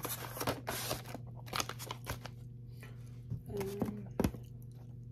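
Paper food wrapper crinkling and tearing as it is handled: a dense rustle in the first second, then scattered sharp crackles and clicks.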